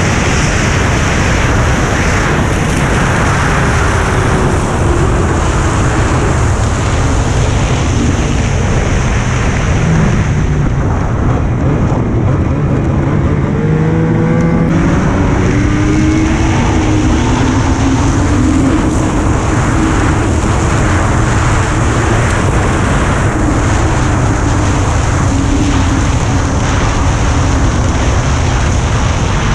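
Snowmobile engine running at trail speed under a steady loud rush of noise, its pitch rising and falling several times through the middle stretch.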